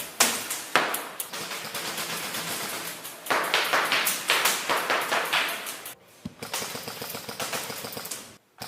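Airsoft guns firing a rapid string of sharp semi-automatic shots, heaviest from about three to five and a half seconds in, breaking off briefly about six seconds in and again just before the end.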